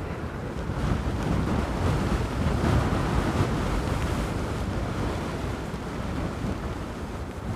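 Wind buffeting the microphone: a rushing, rumbling noise that swells and eases in gusts.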